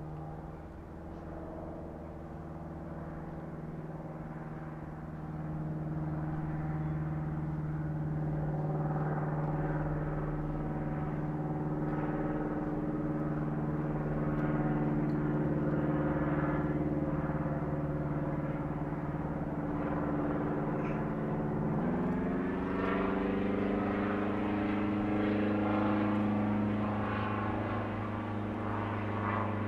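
Engine and propeller of a Cessna 172, a light single-engine plane with a four-cylinder engine, droning steadily as it passes low and growing louder about five seconds in. About two-thirds of the way through, the engine note rises and settles higher as power is added for the climb.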